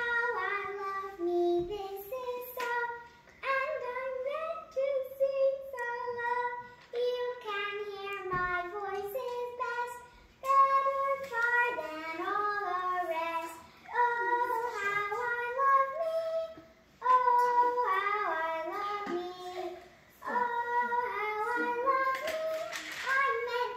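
A child singing a song with no accompaniment, in phrases broken by short pauses for breath.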